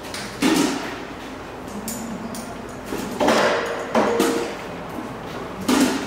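Milking units (claws and teat-cup shells on their hoses) knocking and clanking as they are pulled off the parlour's wash trays: four sharp clanks, one near the start and three in the second half, one of them ringing briefly.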